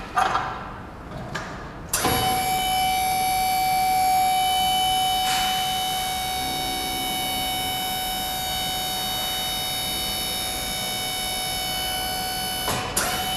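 A pallet changer's electro-hydraulic drive whining steadily for about ten seconds as its upper frame clamps down on the load, starting and stopping abruptly, after a few knocks at the start.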